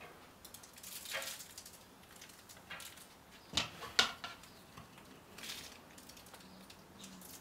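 Metal kitchen tongs clicking and scraping as raw pork riblets are lifted from a bowl and laid on a kamado grill grate: a few soft scrapes and taps, the two sharpest clacks close together a little past the middle.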